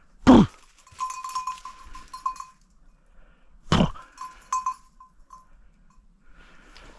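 A hunting dog's collar bell jingles in irregular spells of strikes. Twice, near the start and about halfway, a loud short cry falls steeply in pitch.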